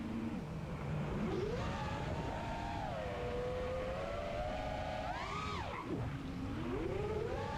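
Brushless motors and props of a 5-inch FPV racing quadcopter whining, the pitch following the throttle: low at first, rising about a second in and holding, a quick rise and drop just past the middle, then climbing again near the end. It stays smooth through the throttle changes, with no prop-wash wobble.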